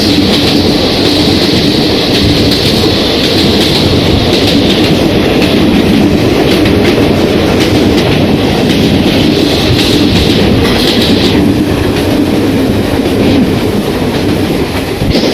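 Express passenger train running past at speed: a loud, steady rumble with wheels clattering over the rail joints. A high hiss drops away about eleven seconds in.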